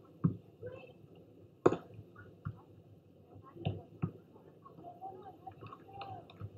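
Hands hitting a volleyball during a rally: several sharp slaps a second or so apart. The loudest comes about a second and a half in.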